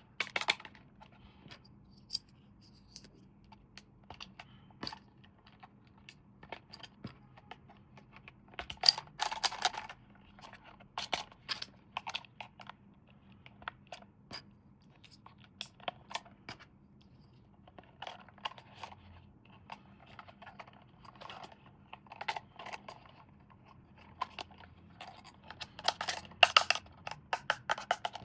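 Hands handling toy packaging: scattered clicks, taps and crinkling of plastic and cardboard, with louder flurries of crinkling about nine seconds in and again near the end.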